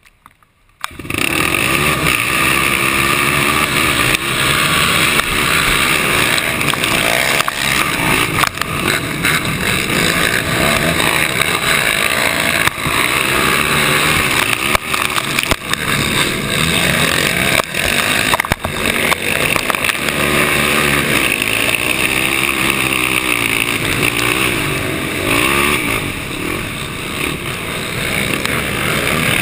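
Yamaha YFZ450 ATV's single-cylinder four-stroke engine at racing revs, setting in suddenly about a second in and then running hard, its pitch rising and falling with throttle and gear changes.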